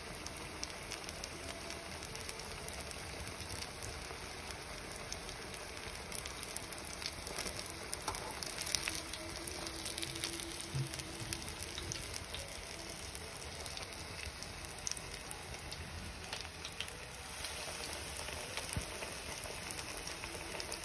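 Breaded pork fillets deep-frying in hot oil in a pan: a steady sizzle with scattered crackles and pops.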